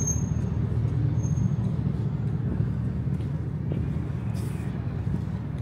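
City street traffic: a steady low rumble of vehicle engines close by, with two brief high squeals in the first second and a half.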